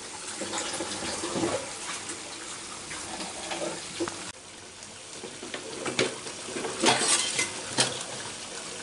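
Balado sauce bubbling in a pan around pieces of pindang tongkol fish, with a few sharp clicks near the end.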